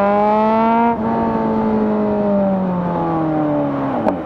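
Kawasaki Z900's inline-four engine through a de-catted SC Project full-system exhaust, pulling hard and rising in pitch. About a second in the revs drop sharply as at an upshift. The pitch then sinks slowly off the throttle, falling away steeply near the end with a sharp pop.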